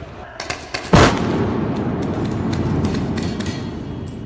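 A loud bang about a second in, followed by a long rolling rumble with scattered sharp cracks, like shots or fireworks going off.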